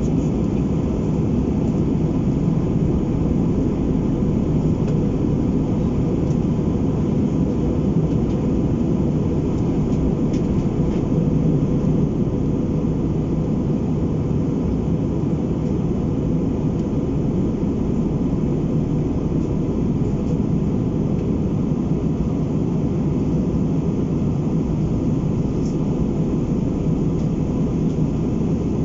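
Steady cabin noise inside an Airbus A319 in flight: an even low rumble of jet engines and rushing air that does not change, with a faint steady tone above it.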